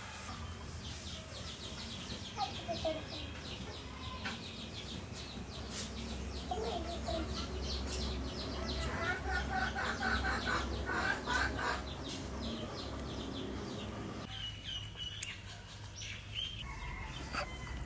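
Domestic chickens clucking with short, quickly repeated calls, over a steady low hum.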